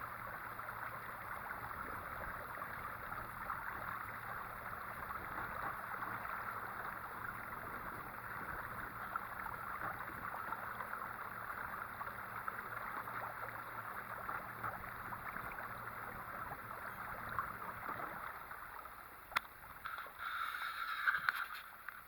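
Kayak under way on an electric trolling motor: a steady rush of water along the hull over a faint low motor hum. Near the end the rush fades, and a few sharp knocks and a short burst of splashing or scraping follow.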